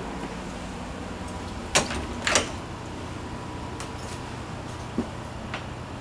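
Interior door knob and latch clicking as a wooden RV door is opened: two sharp clicks about half a second apart, then a lighter knock or tick later on.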